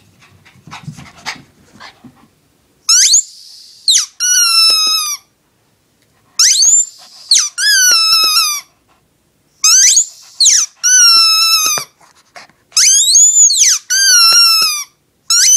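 A rubber squeaky toy squeezed and released four times, about three seconds apart. Each time it gives a short high squeak and then a longer, wavering squeal. A Shih Tzu howls along with the squeaks.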